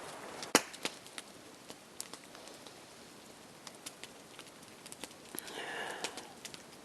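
Nodya log fire of dry pine logs crackling, with irregular sharp pops and one louder pop about half a second in.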